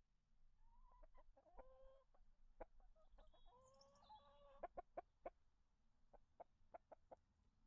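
Faint clucking of chickens: scattered short clucks, with two longer drawn-out calls in the first half.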